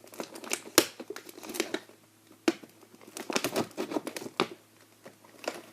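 Toy packaging being worked open by hand: plastic and cardboard crinkling and tearing, with irregular sharp clicks and snaps.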